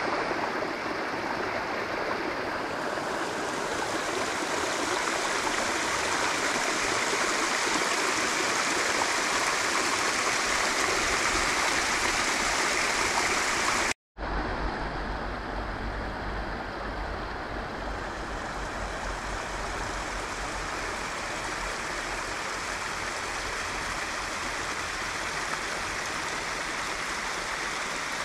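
Steady rushing of stream water. It breaks off for an instant about halfway, then resumes with a deeper rumble underneath.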